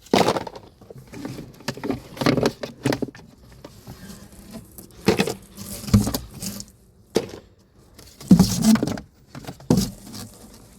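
Irregular rustling and clatter of packaging and planter parts being handled, in short bursts of differing loudness, the loudest just over eight seconds in.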